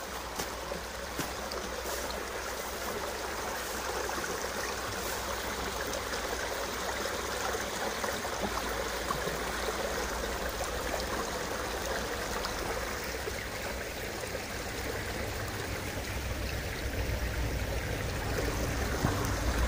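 Small river rushing and splashing as it pours out through a row of concrete culvert pipes, a steady rush of water, with a low rumble building up from about halfway through.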